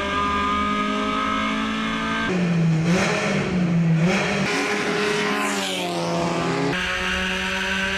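Racing car engines running at high revs, in cut-together stretches: a steady high engine note, then a few seconds of pitch rising and falling with a falling sweep, then a steady high note again.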